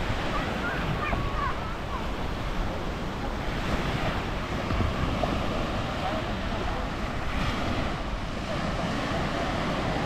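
Small ocean waves breaking and washing up on a sandy beach in a steady surf wash, with wind buffeting the microphone.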